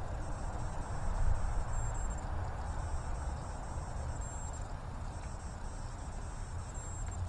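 Insects trilling in a high, steady buzz that swells about every two and a half seconds, over a low, steady rumble.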